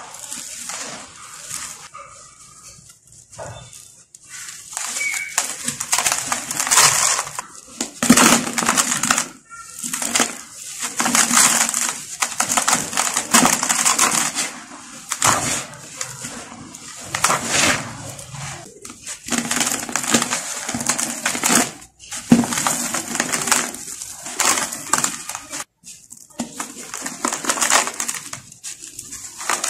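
Hands squeezing and crumbling dry sand-cement powder and chunks: gritty crunching with a dusty hiss, in repeated bursts a second or two long with short pauses between.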